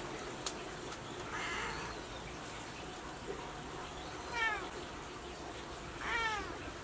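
Tabby cat giving two short meows, each falling in pitch, about four and six seconds in, the second one louder.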